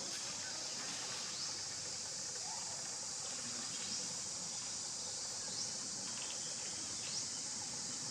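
Insects droning steadily in an even, high-pitched hiss, with faint short rising chirps every second or two.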